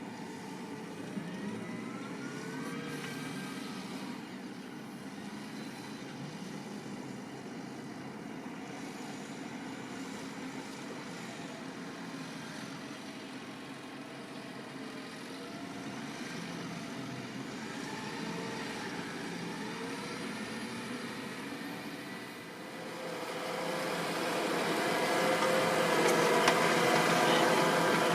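Fendt 724 Vario tractor's six-cylinder diesel engine working with a plough, its pitch rising and falling slowly; it grows much louder near the end as the tractor comes closer.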